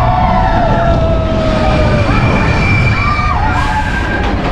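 Several voices screaming in long cries that hold and slide in pitch, over a heavy rumble of wind on the microphone.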